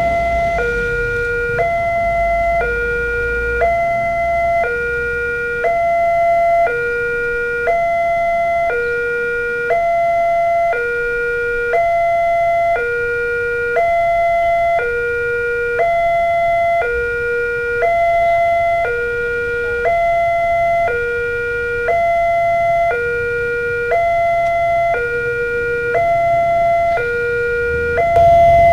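Railroad level-crossing warning alarm from the post's loudspeaker: an electronic two-tone chime alternating between a higher and a lower note, repeating without pause while the barrier is down for an approaching train.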